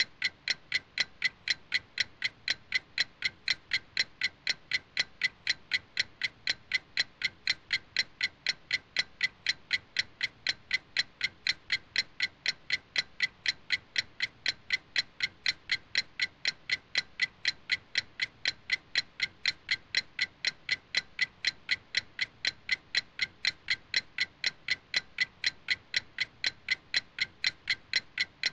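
Clock ticking steadily, about three evenly spaced ticks a second, with no change in pace or loudness.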